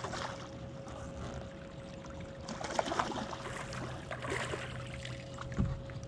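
Water splashing as a hooked largemouth bass thrashes at the surface beside the boat and is lifted out, loudest around the middle. A faint steady whine runs underneath, and a dull thump comes near the end.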